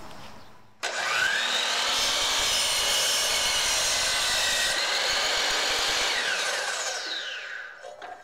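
DeWalt DWS779 12-inch sliding compound miter saw starting abruptly about a second in, its 60-tooth blade spinning up and cutting through a 4x4 post. The motor runs steadily for about six seconds, then is released and winds down with a falling whine near the end.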